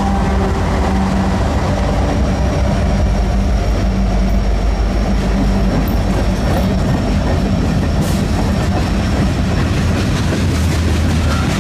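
Diesel-hauled train passing close by: the locomotive engine drone fades in the first few seconds and gives way to the steady rumble and clatter of railcars rolling over the rails.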